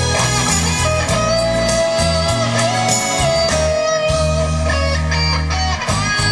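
Instrumental passage of a song's backing track played through stage PA speakers: a held lead melody over a moving bass line, with no vocal.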